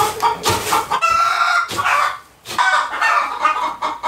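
Chickens clucking in a chicken house, with one bird giving a longer held call about a second in.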